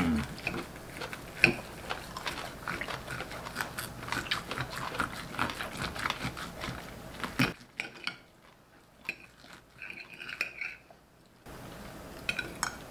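A knife and fork cutting thick grilled ribeye steaks on plates: repeated clicks and scrapes of cutlery against the plates, with some eating sounds.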